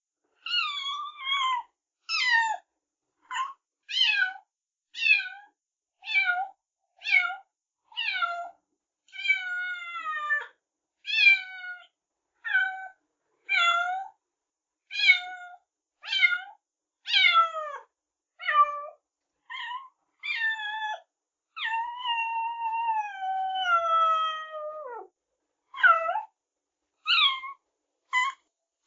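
Kittens meowing: a run of short, high-pitched meows about one a second, most sliding down in pitch, with one long drawn-out meow gliding down about three-quarters of the way through.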